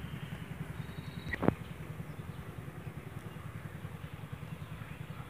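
Steady, fast, low puttering of an engine running, with one sharp click about a second and a half in.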